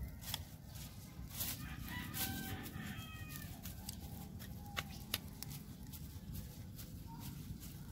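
A rooster crows once, starting about two seconds in, over scattered sharp clicks and knocks.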